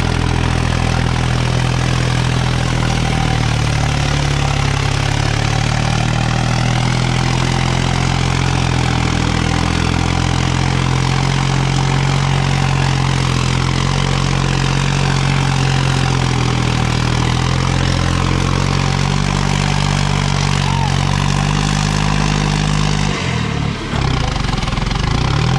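Farmtrac tractor's diesel engine running steadily, its note changing about three-quarters of the way through.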